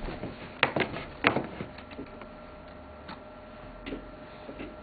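A few separate light clicks or taps, with a faint steady tone coming in about one and a half seconds in.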